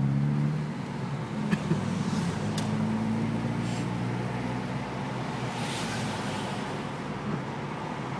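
Car driving, heard from inside the cabin: a low engine hum whose pitch shifts, over steady road noise, with two sharp clicks about a second and a half in and a second later, and a brief rise of hiss near the six-second mark.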